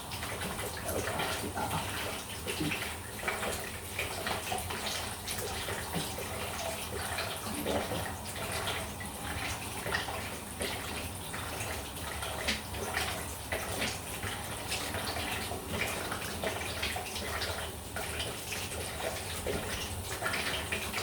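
Water running steadily from an open supply pipe that is still under pressure because the stopcock won't fully shut off, with small knocks and clinks of work on the pipework throughout.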